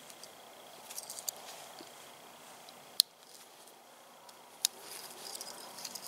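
Small folding multi-tool being handled as its tools are folded and opened: light metallic clicking and rattling, with two sharp snaps, the first about three seconds in and the second a second and a half later.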